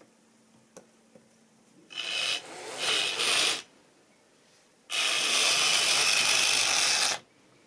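A finger rubbing and scratching right beside the camera's microphone, heard as loud scratchy noise in two bursts: a broken one about two seconds in, then a steadier one of about two seconds near the end.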